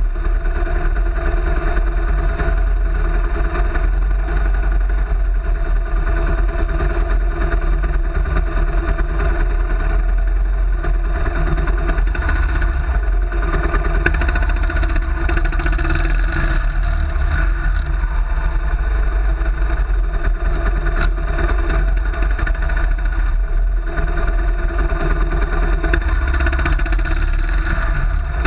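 Kawasaki KLR650's single-cylinder engine running steadily, with little change in pitch.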